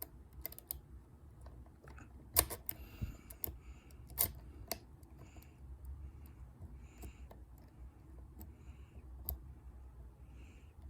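Lock-picking tools working in a dimple-lock euro cylinder: small metallic clicks and ticks of the pick and tension bar in the keyway, with the sharpest clicks about two and a half and four seconds in.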